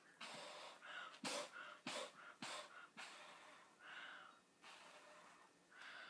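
Faint blowing and breathing: several short puffs through a homemade bubble blower, a water bottle with a soapy cloth over its end, with quick breaths between them.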